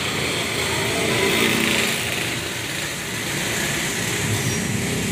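A small engine running steadily, with a continuous hiss.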